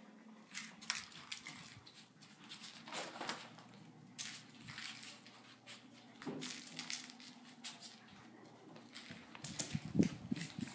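Scattered light scuffs, taps and rustles from a cat chasing a toy mouse on a string across the floor. Near the end comes a denser run of louder knocks and rubbing.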